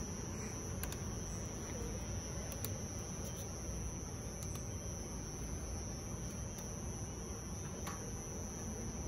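Metal underarm crutches' tips tapping on brick paving, heard as faint, irregular clicks about once a second. Underneath is a steady low rumble of outdoor background noise and a constant high whine.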